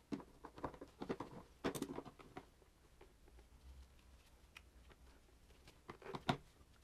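Faint handling noises as gloved hands push cables and connectors through a motorcycle's rear frame: scattered light clicks and rustles, with a cluster about two seconds in and another near the end.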